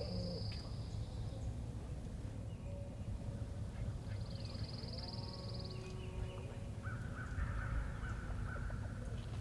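Wild birds calling: two high, fast trills and a harsher rippling call near the end, over a steady low wind rumble.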